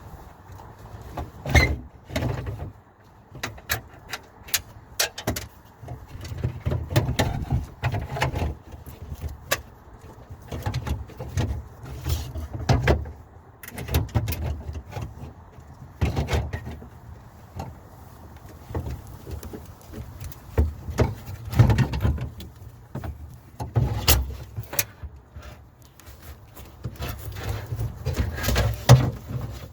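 Irregular clicks, knocks and rattles of a Torx driver and metal and plastic parts being worked inside a car door, as the screws holding the door lock actuator are undone and the actuator is worked loose.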